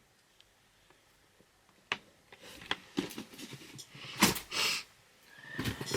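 Packaging and items being handled: a sharp click about two seconds in, then scattered knocks and rustles, with a louder rustling swish about four seconds in.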